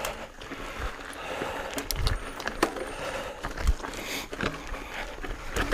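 Mountain bike riding over a rough, rocky trail: scattered rattles and sharp clicks from the bike, and the hiss of tyres on dirt and rock. A few low thumps come as the wheels hit rocks.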